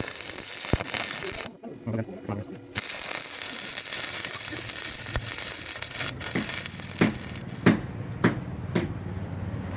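Blacksmith's hammer knocking on iron during a cart-wheel repair: one sharp knock just under a second in, then four knocks about two a second near the end, over steady workshop noise.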